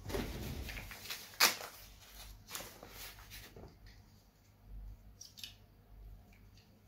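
Hands handling a small folding pocketknife, rustling with small clicks, and one sharp click about a second and a half in.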